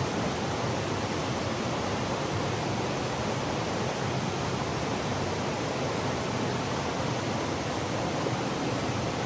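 Waterfall's water rushing in a steady, even noise with no breaks.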